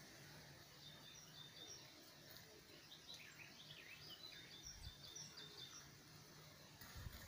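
Faint birdsong: small birds chirping in short, high notes scattered through the middle, over a quiet outdoor background, with a couple of soft low thumps.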